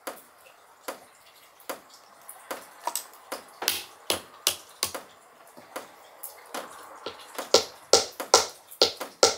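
Sharp clicks and knocks of small hard pieces being sorted by hand and dropped into a wooden box, about two a second, louder and quicker in the last two seconds.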